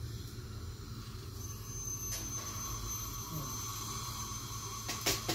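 A dental handpiece gives a thin, steady high-pitched whine that starts about a second and a half in, over a low steady hum of equipment. A few short clicks come in, the loudest near the end.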